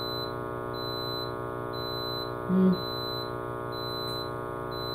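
PowerJack split-phase inverter's alarm sounding repeated high-pitched beeps over a steady electrical hum. The owner suspects a warning for low battery voltage under heavy load.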